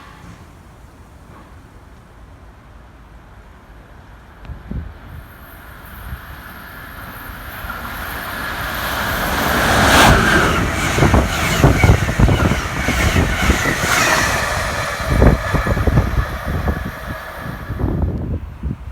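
Amtrak Northeast Regional passenger train approaching and passing at speed. A faint rumble grows over several seconds into loud wheel clatter with a steady high hiss from the rails, then falls off near the end.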